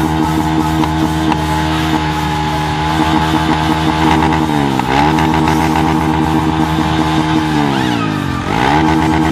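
Small Honda motorcycle engine revved and held at high speed, its pitch dipping and climbing back up about halfway through and again near the end.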